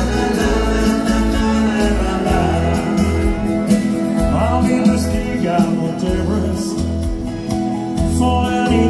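Live dance band playing a country-tinged song intro on acoustic and electric guitars, electric bass and drums, with a steady bass pulse.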